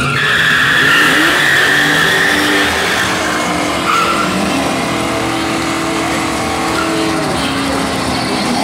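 Drag-racing cars accelerating down a drag strip at full throttle, loudest in the first couple of seconds, with the engine pitch rising and dropping back several times.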